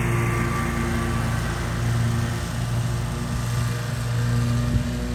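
Gravely zero-turn riding mower's engine running steadily as it mows the lawn.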